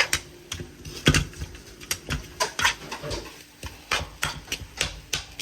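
Kitchen utensils and dishes clinking and knocking in irregular taps, a few each second, with one louder knock about a second in.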